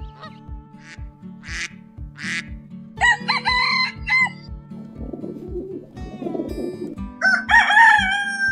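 A rooster crowing over background music with a steady beat. There is a short run of calls about three seconds in, then a long crow from about seven seconds in that tails off slightly.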